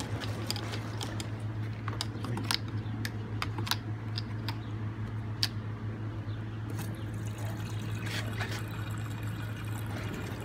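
Fuel being poured into a gas-powered RC car's tank, with scattered light clicks of handling, over a steady low hum.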